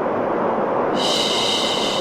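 Steady white noise, with a long 'shhh' shushing hiss coming in over it about a second in.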